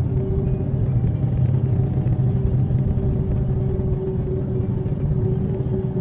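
Steady low rumble of a car driving along a road: engine and tyre noise heard from inside the moving car, with a constant low hum.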